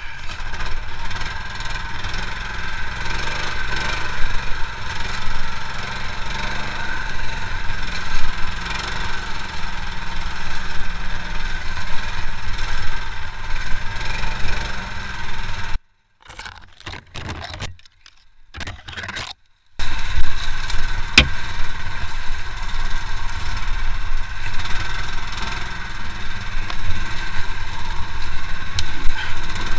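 Motor-towing sled engine running steadily as it crawls through flooded swamp. The sound cuts out for a few seconds about halfway through, then picks up again, with a sharp click just after it returns.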